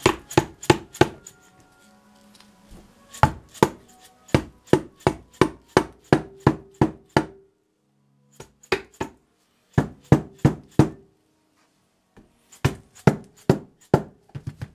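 Rubber mallet repeatedly tapping the shaft ends of a Toyota Tercel 4WD manual transmission, in quick runs of blows about three to four a second with short pauses between runs, each blow with a brief metallic ring. The tapping drives the shafts in to separate the transmission case halves.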